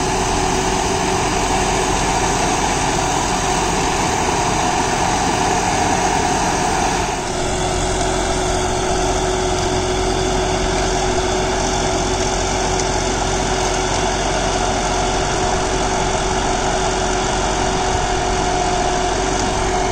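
John Deere 5075E tractor's 2.9-litre common-rail diesel running steadily under load, driving a PTO rotary tiller that is chopping banana stalks into the soil. The tone shifts about seven seconds in.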